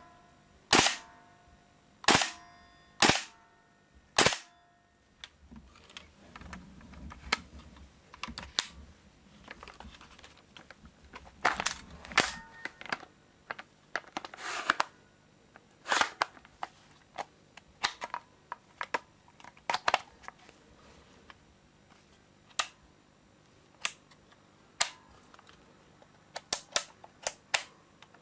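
WE SCAR-L gas blowback airsoft rifle firing four single shots about a second apart, each a sharp report with a short metallic ring as the bolt cycles. Then come scattered plastic and metal clicks as the rifle is handled: its folding stock and then its fire selector are worked, with a quick run of clicks near the end.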